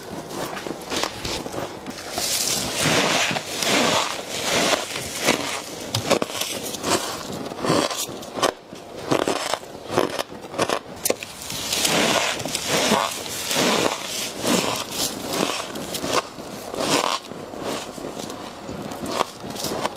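Frost crunching as it is bitten and chewed, with scraping: a dense, irregular run of crackling crunches.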